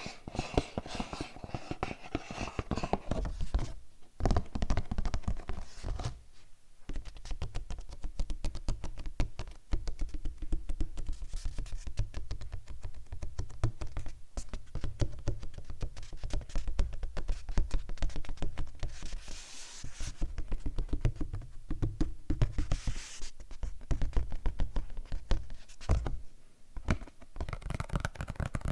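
Fast, dense tapping and scratching on objects close to the microphone, with low thuds beneath. It pauses briefly twice, about four and six and a half seconds in.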